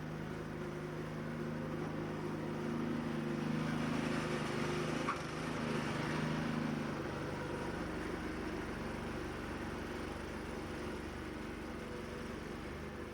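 A steady engine hum that swells a few seconds in and eases off again, with one short click about five seconds in.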